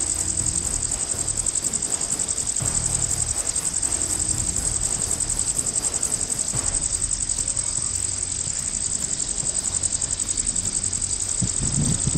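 Crickets chirring without a break: a steady, high-pitched, fast-pulsing chirr over a low rumble.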